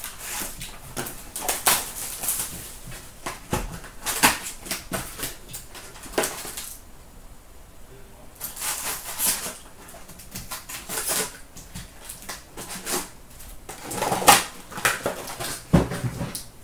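Hands opening a sealed box of hockey trading cards: crinkling plastic wrap and rustling cardboard and card packs in irregular bursts, with a quieter lull about seven seconds in.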